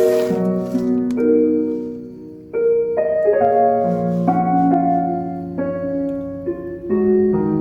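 Background music: a piano playing slow, sustained notes and chords that change every half second to a second, with a short drop in level about two and a half seconds in.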